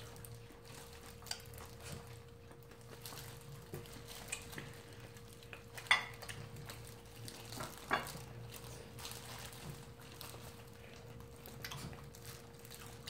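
Quiet eating sounds of fried chicken eaten by hand: chewing, plastic food gloves rustling and scattered small clicks of plates and bones, with two sharper clicks about six and eight seconds in. A faint steady hum runs underneath.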